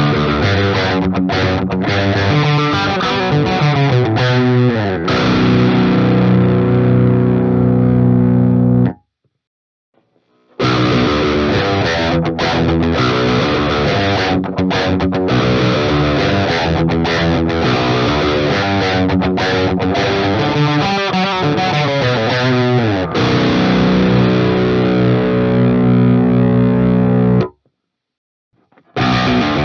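Ibanez Axion Label RGD71ALMS seven-string electric guitar with Fluence Modern Ceramic pickups, played with a distorted amp tone: a riff that ends on a ringing chord, cut off sharply about nine seconds in. After a second and a half of silence the riff starts again and ends on another held chord, cut off near the end.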